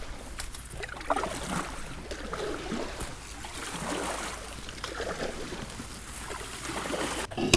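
Kayak paddle strokes: the blades dip and pull through shallow, lily-pad-covered water again and again, with splashing and trickling off the blades, ending in a short knock.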